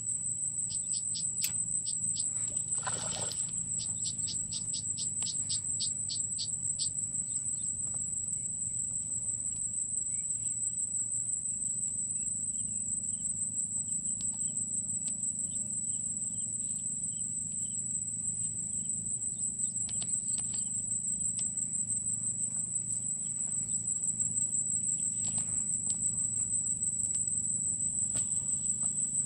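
Insects trilling in one steady, high-pitched tone, with a low steady hum underneath. A run of quick clicks comes in the first few seconds.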